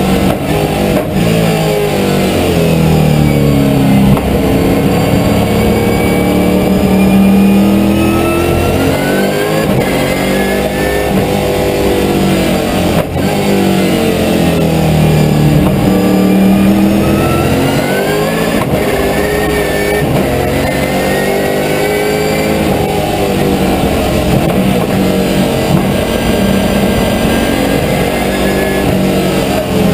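Holden V8 Supercar's V8 engine heard from inside the cockpit, its revs rising hard and dropping back again and again as the car accelerates and brakes around the lap.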